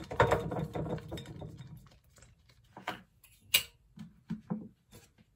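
Plastic sachet crinkling and rustling as it is handled, then scattered clicks and taps of a plastic water bottle, with one sharp click about three and a half seconds in.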